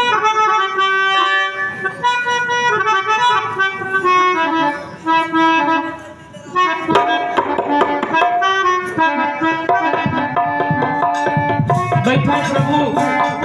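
Harmonium and tabla playing together: the harmonium holds sustained chords and melody while the tabla keeps up a beat of sharp strokes. The music dips briefly about five seconds in and then comes back in full.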